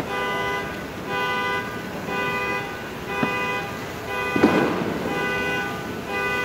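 A car horn honking in a steady rhythm, one short blast about every second. A single firework bang comes about four and a half seconds in.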